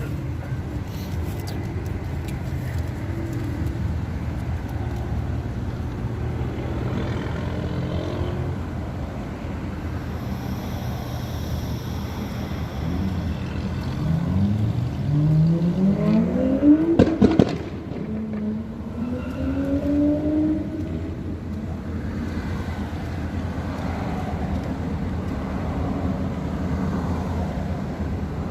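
Motor vehicle engine running steadily, with a vehicle accelerating in a rising sweep of pitch about halfway through, a few sharp clicks at its peak, then a shorter second rise.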